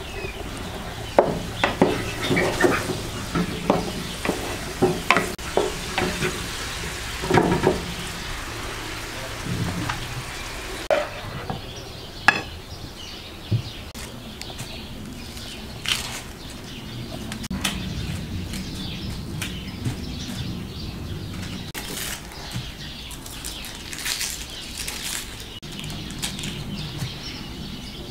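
Meat frying and sizzling in a pan, stirred with a spoon that knocks against the pan. About eleven seconds in the sizzling stops, giving way to scattered small clicks and scrapes of an onion being peeled with a knife.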